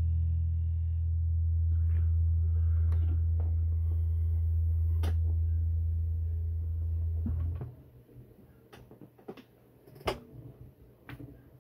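A low note on an amplified hollow-body electric bass guitar, left ringing after it is struck and then stopped short about eight seconds in. A few faint handling clicks follow.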